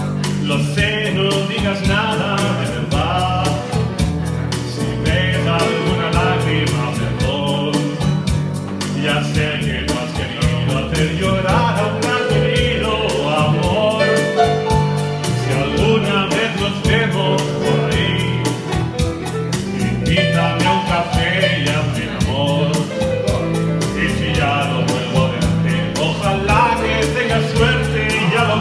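A man singing a Latin pop ballad live into a microphone, in phrases of a few seconds each, accompanied by an electric keyboard playing sustained chords and bass notes over a steady beat.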